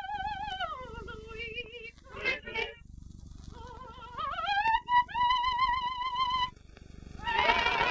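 A single high singing voice with a wide vibrato: a held note that slides down about a second in, two brief broken notes, then a slow rising glide up to a higher held note. The full choir comes back in near the end.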